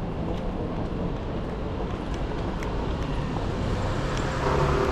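Busy city street ambience: steady traffic noise with a low rumble, heard while walking.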